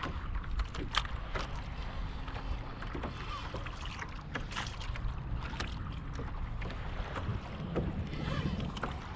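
Sea water lapping and splashing against a kayak's hull, with irregular small knocks and slaps, while wind rumbles on the microphone.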